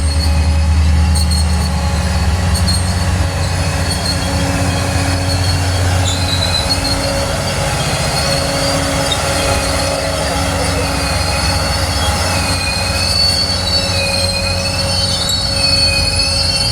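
Train on the rails, its wheels squealing in a high, wavering pitch over a low rumble that eases after the first two or three seconds.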